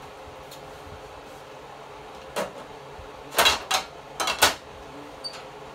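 Glass pan lid clattering and clinking against a skillet as it is lifted off and set back down: one sharp clink, then a quick cluster of loud clatters around the middle.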